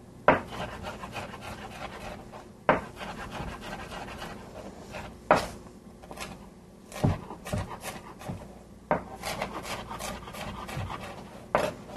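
Chef's knife mincing peeled ginger on a cutting board: irregular sharp knocks of the blade on the board every second or two, with quieter ticks and scraping between.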